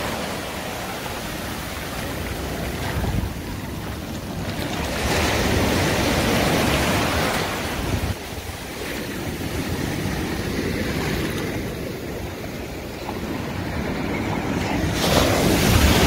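Sea surf breaking and washing up the shore, a rushing noise that swells and eases with each wave, loudest about five seconds in and again near the end.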